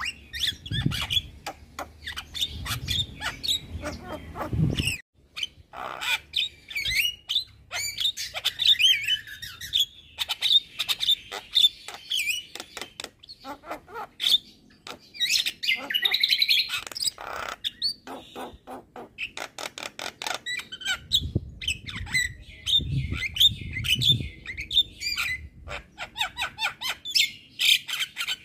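A Javan myna singing hard: a fast, varied stream of chattering notes, clicks and short whistles. A low rumble runs underneath twice, once at the start and again about three-quarters of the way through.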